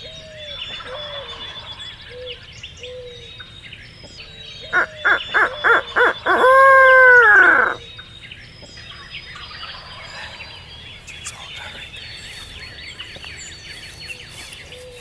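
Songbirds chirping in the background. About five seconds in comes a loud bird call: five quick hoot-like notes, then one long drawn-out note of about a second and a half that falls in pitch at its end.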